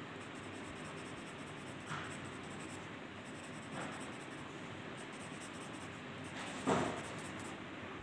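Pencil shading on paper: soft scratching strokes laying in a darker tone, with a louder scrape near the end, over a steady low hiss.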